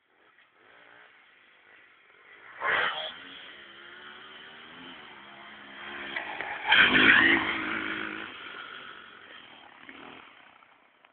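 Motocross bike engine revving on the track. It is loudest in a short surge about three seconds in and a longer one around seven seconds, then fades away.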